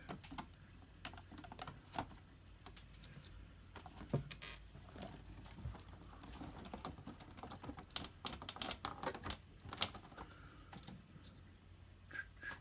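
Irregular small clicks and taps of hard plastic being handled: an RC car's body shell and its body pins and clips being fitted, with a few louder knocks among the light clicks.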